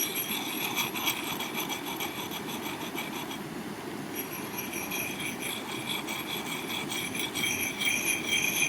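Hand-held sanding disc rubbed along the steel edge of an old hatchet head: a continuous abrasive rasping with the blade ringing at several high pitches. The rubbing breaks off for under a second about three seconds in, then carries on.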